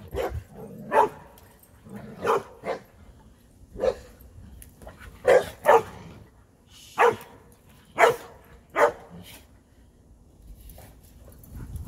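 A dog barking: about ten single and paired barks at an irregular pace, which stop a couple of seconds before the end.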